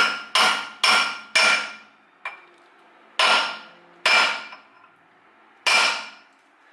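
Hammer blows on a homemade driver, seating a knuckle bearing race in a Toyota solid front axle steering knuckle: about seven ringing metal strikes, a quick run of four and then three slower ones.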